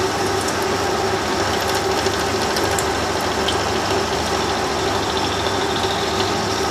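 Lathe running under power while a large boring bar takes a roughing pass inside a model diesel engine's crankcase casting. It makes a steady mechanical hum with one constant mid-pitched tone.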